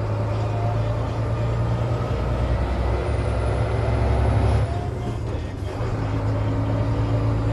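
HOWO 371 dump truck's six-cylinder diesel engine running under load, heard from inside the cab, its note dropping lower for a couple of seconds and dipping briefly about five seconds in.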